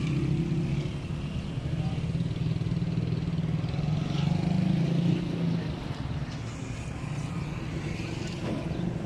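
A motor engine running steadily, a low hum that eases a little about six seconds in, over general outdoor background noise.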